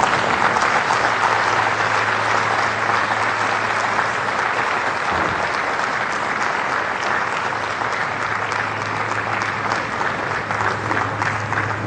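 Spectators in the stands applauding steadily, a dense patter of many hands clapping that eases slightly toward the end, over a faint steady low hum.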